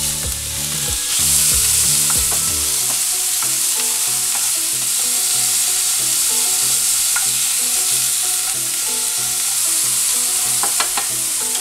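Cubes of flank steak sizzling in olive oil in a nonstick frying pan, with the scrape and clatter of a wooden spatula stirring and turning the pieces. The sizzle grows louder about a second in.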